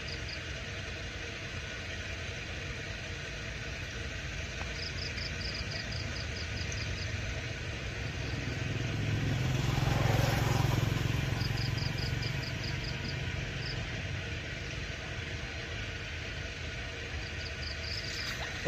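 A motor engine passes by, swelling to its loudest about ten seconds in and then fading away. Short runs of rapid high chirps recur every few seconds.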